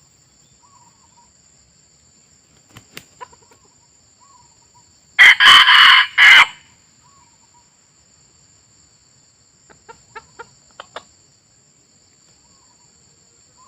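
A red junglefowl cock crowing once, loud and about a second long, in a few quick pieces. A steady high insect drone runs underneath, with a few faint clicks before and after.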